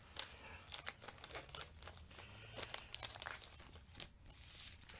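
Paper rustling and crinkling as a folded paper packet is opened and the sheets inside are handled: faint, irregular crackles and small clicks, busiest around the middle.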